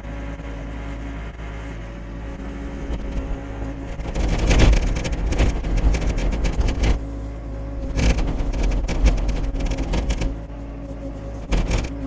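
Hyundai mini excavator's diesel engine running steadily as the machine lifts logs off a sawmill and swings and tracks away with them. The sound grows louder and rougher twice, from about four to seven seconds and again from about eight to ten seconds.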